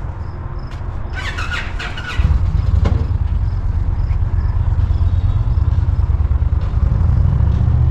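Motorcycle engine running at low speed with a steady low rumble that grows louder about two seconds in as it pulls away. A brief high-pitched squeal about a second in.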